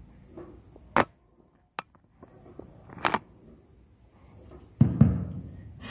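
A handheld microphone being handled and knocked, its bumps played loud through a renovated 4-channel amplifier and speakers: a sharp click about a second in, another about three seconds in, and a heavier low thump near the end.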